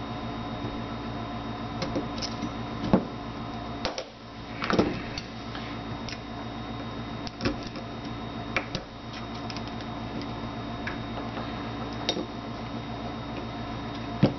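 Scattered small metallic clicks and scrapes of pliers and a small screwdriver working against a Beretta 21A Bobcat pistol frame as the tiny sear spring is pried out, over a steady background hum.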